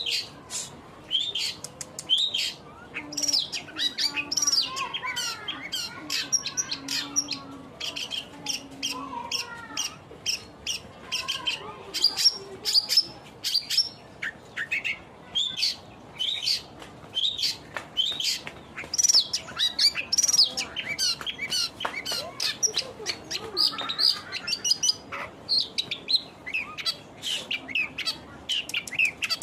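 Long-tailed shrike singing without pause: a rapid, varied stream of chirps and warbling notes.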